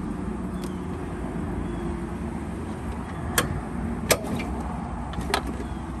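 A handful of sharp metal clicks and clanks, loudest about three and four seconds in, from the latch lever and rear access panel of a Case TR310 track loader being worked by hand, over a steady low rumble.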